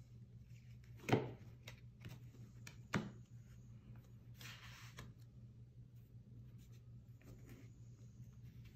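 Plastic-sleeved trading cards being set down and slid on a cloth playmat: a light tap about a second in and another about three seconds in, then a soft rubbing slide around four and a half seconds in, over a faint steady hum.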